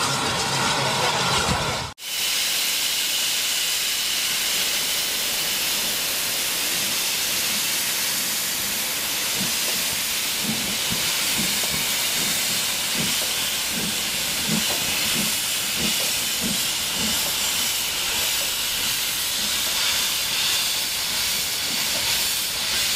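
Southern Railway S15 class 4-6-0 steam locomotive No. 847 working away with a train of coaches, a loud steady hiss of steam over it. Through the middle the locomotive's exhaust beats come through as an even chuffing, about two a second.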